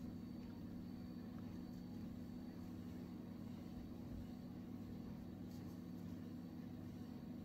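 Steady low background hum with a faint thin whine above it, unchanging throughout; no distinct crochet or handling sounds stand out.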